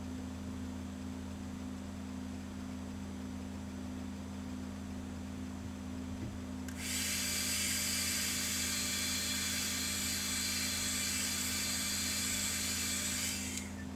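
Airbrush spraying paint: an even hiss that starts about halfway through and cuts off shortly before the end, over a constant low hum.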